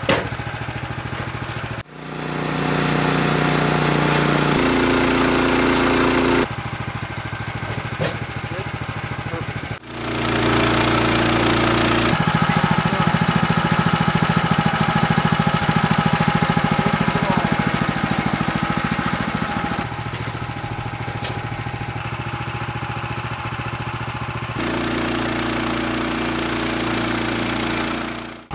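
Sawmill engine running steadily while milling logs, its pitch and loudness shifting abruptly every few seconds.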